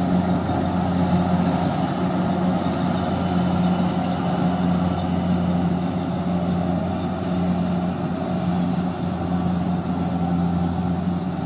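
Kubota DC-70 rice combine harvester's diesel engine running steadily, a constant low hum with no change in speed.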